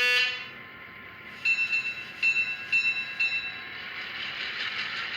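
ESU LokSound decoder's diesel locomotive sounds played through a small model-train speaker: the end of a horn blast, then four strikes of the locomotive bell about half a second apart, then a rushing noise that builds up.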